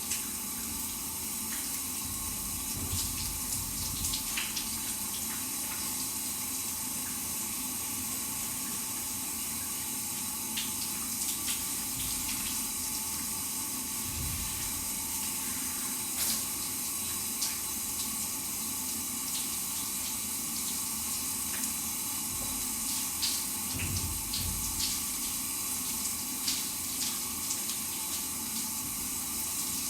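Shower running steadily: an even hiss of spraying water, broken by scattered sharper splashes and drips.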